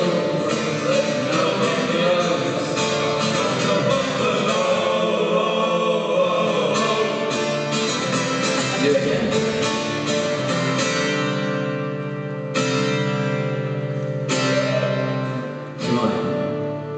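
Live rock band with orchestra and choir performing: singing over guitar and orchestral backing. From about eleven seconds in, the music settles into long held chords broken by a few strummed guitar chords.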